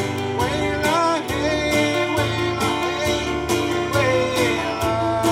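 Live gospel song: a man singing over a strummed acoustic guitar, with band accompaniment keeping a steady beat.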